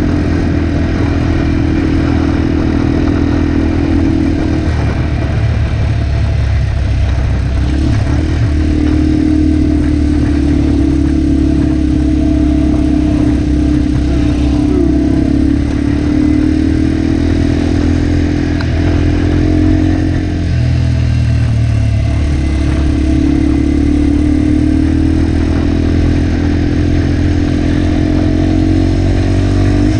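Yamaha TW200 dual-sport motorcycle's single-cylinder four-stroke engine running steadily while riding a gravel trail. Its pitch dips briefly a few times and then picks back up.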